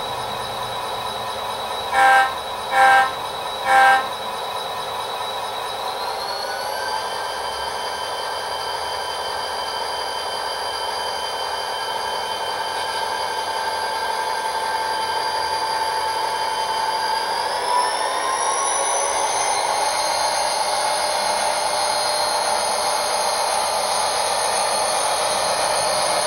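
Sound decoder in an HO-scale SD40-2 locomotive model, playing EMD diesel locomotive sound through its small speaker: three short horn blasts about two seconds in, with the engine running under them. The engine then revs up, once about six seconds in and again near eighteen seconds, notching up as the model runs.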